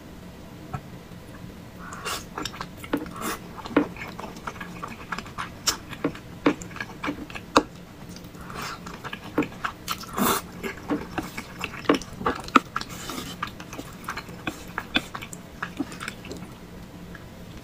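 Close-miked eating sounds: chewing and wet mouth clicks on thick noodles and meatballs, in irregular bursts starting about two seconds in and thinning out near the end.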